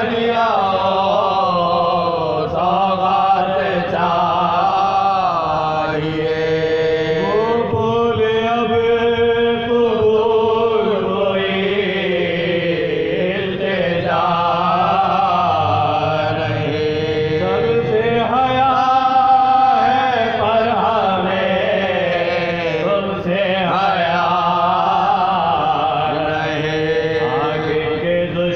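Soazkhwani: Urdu elegiac chanting of a marsiya, with voices holding long, slowly gliding melodic lines and no drums or other strikes.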